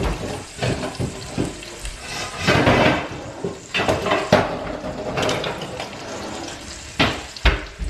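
Oil sizzling in a frying pan of peppers, with pots and lids clattering and knocking as a cabinet is searched for a lid; two sharp knocks near the end are the loudest.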